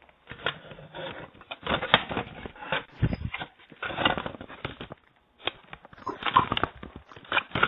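Irregular knocks, scraping and rustling picked up by a Ring video doorbell's own microphone, the sound of a man handling the doorbell as he tries to steal it.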